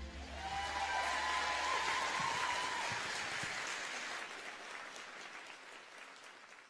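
Concert audience applauding after the song ends, the clapping fading out toward the end.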